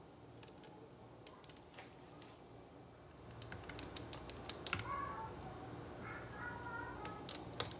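Light clicks and taps from a stainless steel trigger ice cream scoop, its lever working and its metal touching the glass, as a scoop of vanilla ice cream is released onto a glass of mango milkshake. The clicks cluster from about three seconds in, with a few short rings, and two more come near the end.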